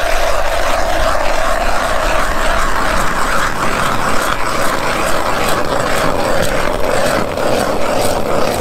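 Ice auger boring through thick lake ice: a steady grinding as the blades cut and throw up chips, stopping abruptly at the end.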